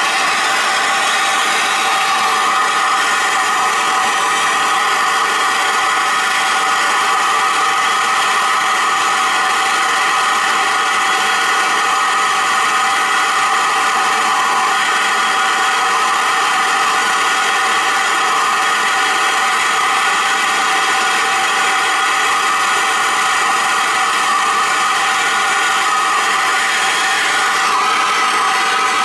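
Handheld plumbing gas torch burning steadily, its flame held on a copper pipe cap while it is sweated shut with solder.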